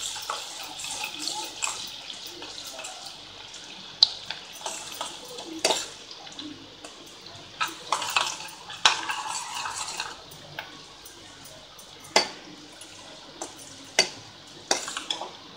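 Chopped onions sizzling in hot oil in a stainless steel kadai, being fried until golden, while a steel spoon stirs them and clinks and scrapes against the pan every second or two.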